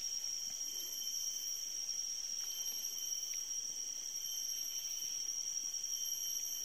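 Steady chorus of insects, several constant high-pitched tones layered over one another without a break.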